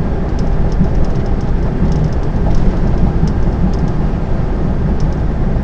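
Steady low rumble inside a lorry's cab at motorway speed: engine and road noise.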